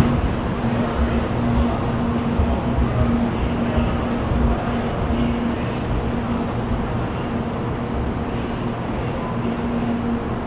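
700 series Shinkansen train running slowly alongside the platform: a steady rolling rumble with a low hum that fades in and out.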